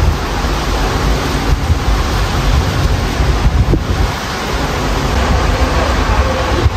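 Strong gusty storm wind buffeting the microphone: a loud, steady rushing noise with an uneven low rumble, over the hiss of highway traffic.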